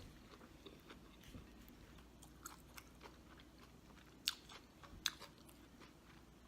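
Faint crunchy chewing of food, with small scattered clicks and two sharper ticks about four and five seconds in.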